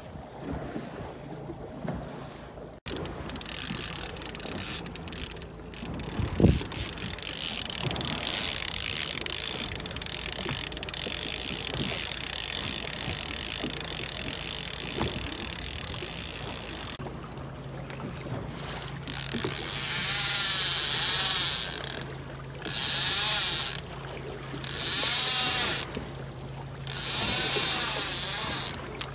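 Wind and water hiss on a small fishing boat out on open water, joined by a steady low motor hum about halfway through. Near the end come four loud bursts of a wavering mechanical whir, each lasting one to two seconds.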